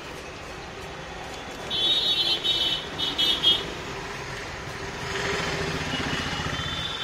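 Road traffic: a vehicle horn honks in a quick string of toots about two seconds in, then a motor vehicle runs close by near the end.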